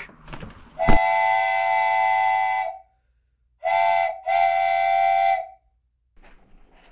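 A train-whistle sound effect blowing a chord three times. A sharp click about a second in leads into a long blast; after a pause come a short blast and another long one.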